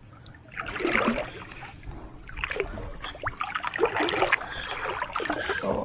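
Irregular water splashing and sloshing, with a few sharp clicks, as a hooked snakehead is landed at the water's edge.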